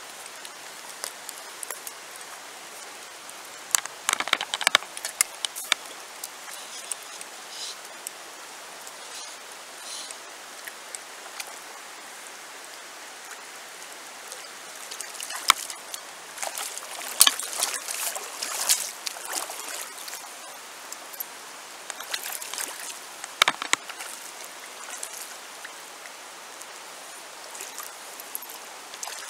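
Shallow river water running over a stony bed, a steady rush, with three spells of sharper, louder splashing: about four seconds in, for several seconds from around fifteen seconds, and again near twenty-three seconds.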